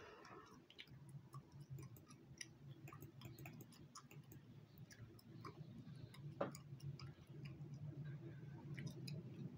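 Faint, irregular clicking and smacking, a few small clicks a second, from chewing gum and a computer mouse, over a low steady hum.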